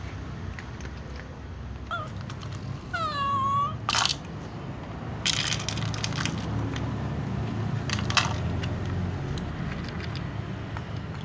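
A domestic cat meows once, a short call that dips and then rises in pitch, about three seconds in. Around it come several short crunching and crackling noises from cats eating dry kibble out of thin plastic tubs.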